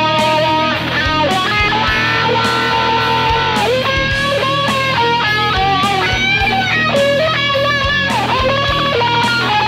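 Les Paul Standard electric guitar playing a lead solo line of single notes, with string bends up into held notes (around four and eight seconds in) and vibrato on the sustained notes.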